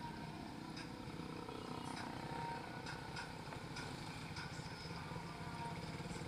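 Suzuki Raider R150 Fi motorcycle's single-cylinder four-stroke engine running steadily while riding, with a few sharp ticks.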